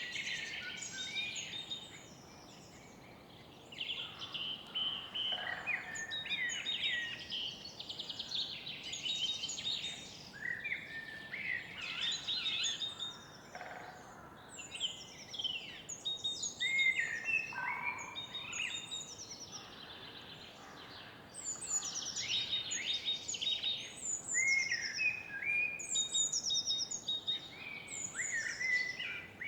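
Several songbirds singing at once, many short overlapping phrases, chirps and trills, with a brief lull about two seconds in, over a faint steady background hum.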